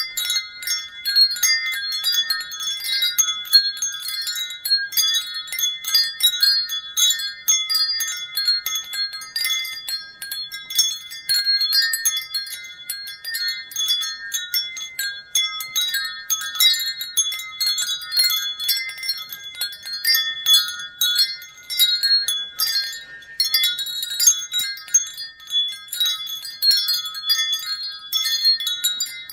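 Wind chimes ringing without pause: many high, clear notes struck irregularly and overlapping, several strikes a second.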